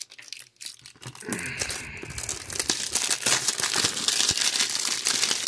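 Plastic wrapping on a sealed trading-card booster box crinkling and tearing as it is pulled open, starting about a second in with a dense run of small crackles.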